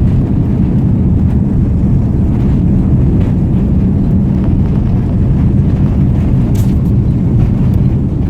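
Jet airliner engines and airframe making a loud, steady low rumble, heard from inside the passenger cabin.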